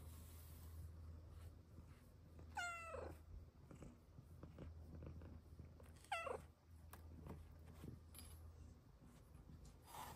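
Snow Lynx Bengal cat purring softly while being petted, with two short meows that fall in pitch, about two and a half seconds in and again about six seconds in.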